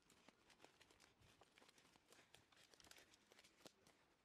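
Near silence, with faint, irregular crackles of footsteps through leaf litter and undergrowth.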